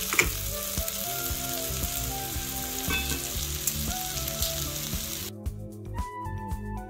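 Sliced okra and onions sizzling in olive oil in a small cast iron skillet, with a wooden spoon stirring and one knock against the pan near the start. Background music plays under it. The sizzle cuts off suddenly about five seconds in, leaving only the music.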